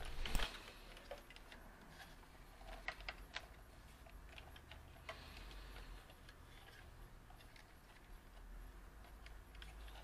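Faint, scattered clicks and light knocks of a plastic refrigerator inverter board housing and its wiring harness being handled, over a faint steady low hum.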